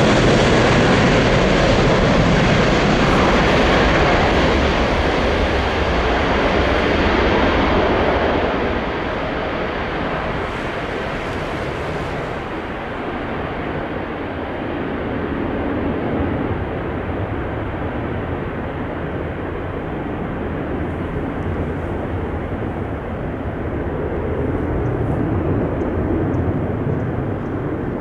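Airbus A330-200 twin-engine jet airliner at takeoff power, rolling and climbing away; the jet noise is loud at first, then drops and loses its high hiss about eight to twelve seconds in as the aircraft moves off, and continues as a duller rumble.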